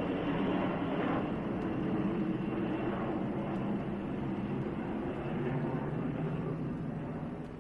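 Steady engine drone of an aircraft, slowly fading away.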